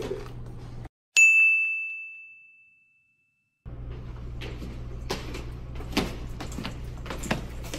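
A single bright bell ding, struck once about a second in and fading away over about two seconds against dead silence. Then a steady low hallway hum returns with quick footsteps on a hard floor.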